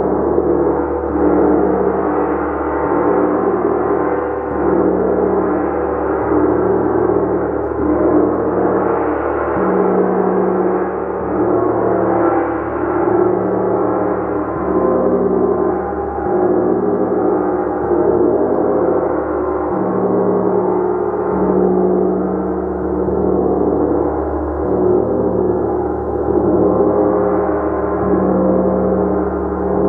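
A gong played continuously, building a dense, sustained wash of many overlapping ringing tones that swells gently in waves.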